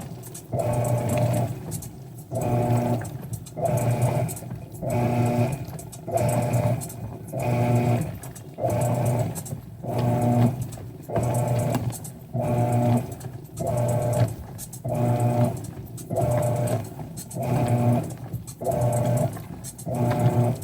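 Mueller Popmatic washing machine agitating its load. The motor hums in bursts of about a second, separated by short pauses, in an even rhythm of roughly one stroke per second.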